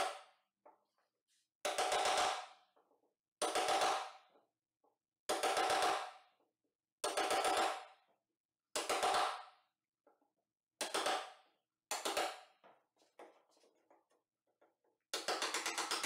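Chisel struck with a hammer, cutting a hinge mortise into the edge of a beech door, with a ringing blow about every one and a half to two seconds. Near the end the blows turn into a quick run of taps, about five a second.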